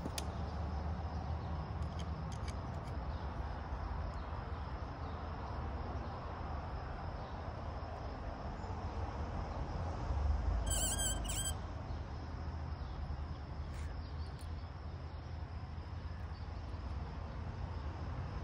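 Steady outdoor background rumble, with a short high chirping sound about ten and a half seconds in.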